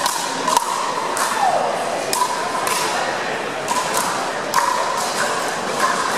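Pickleball paddles striking a plastic ball in a rally: sharp pops, irregular and roughly one or two a second, with voices in the background.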